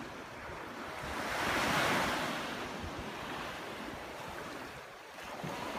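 Small waves breaking and washing up a sandy beach, one wave swelling loudest about two seconds in and then easing off. Wind buffets the microphone.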